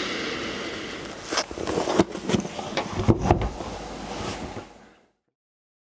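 A long sniff through the nose at an old leather-bound book held to the face, followed by several handling knocks and rubs as the book is moved. The sound cuts off about five seconds in.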